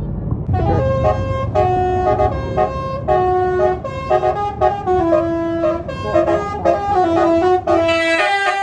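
Bus basuri telolet horn playing a tune of short stepped notes, starting about half a second in, over the bus engine's low rumble.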